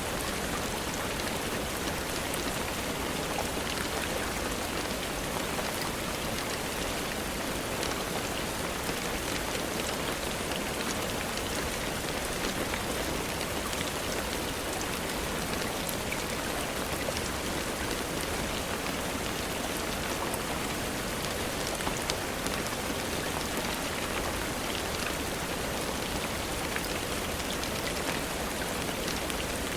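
Steady rainfall: a dense, even hiss with many fine scattered drop ticks, holding at one level throughout.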